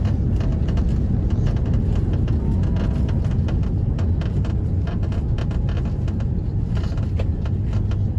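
Airbus A330-300 airliner cabin noise heard from inside the cabin: a steady, loud low rumble with frequent light rattles and clicks.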